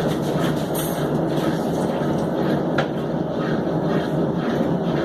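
Consul Maré 7.5 kg top-loading washing machine in its spin cycle, running with a loud, steady mechanical rumble and a regular pulse a few times a second, plus one sharp click about three seconds in. The excessive spin noise points to a worn part that is due to be replaced.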